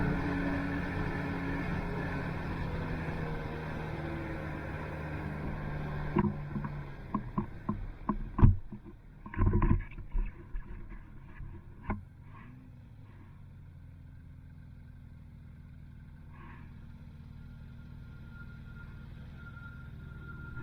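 Snowmobile engine running steadily, then dropping to a lower, quieter run about six seconds in. Over the next several seconds a series of sharp knocks and clunks rings out, the loudest about halfway through.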